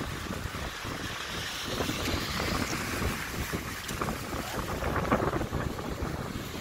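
Sea waves breaking and washing over a rocky pebble shore, with gusty wind blowing on the microphone.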